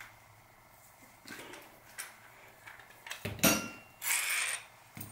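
Small metal bike parts and tools handled on a workbench: a few light knocks, then a sharp metal clank with brief ringing about three and a half seconds in, followed by half a second of rubbing or scraping.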